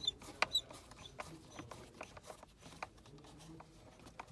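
Irregular small clicks and taps of a Phillips screwdriver working a screw out of a plastic steering-column cover, with a few sharper clicks in the first second.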